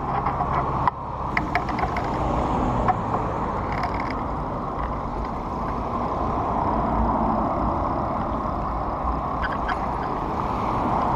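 Wind buffeting a bicycle-mounted camera's microphone while riding, a steady rushing noise mixed with road and tyre noise. A few small rattling clicks come through, near the start and again near the end.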